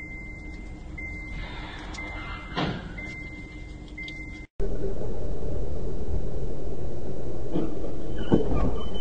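Dashcam audio of a car on the road: a low steady rumble with a high electronic beep repeating about once a second and a single knock partway through. After an abrupt cut, a louder steady road rumble with a couple of knocks and a short high beep near the end.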